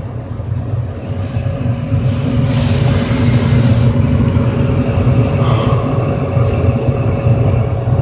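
Trane XE80 80% gas furnace running, burners firing and blower on: a loud, steady low rumble with a faint steady hum over it. The furnace is running way too hot, its temperature rise far above range, which the technician puts down to restricted airflow from a plugged filter.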